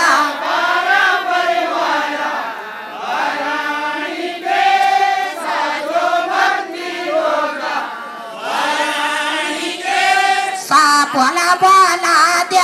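A group of women singing a devotional folk song to Nanda Devi together, in phrases of a few seconds with short breaks between them.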